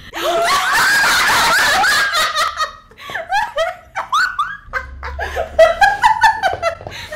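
Three young women screaming together in excitement for about two and a half seconds, then breaking into fits of laughter.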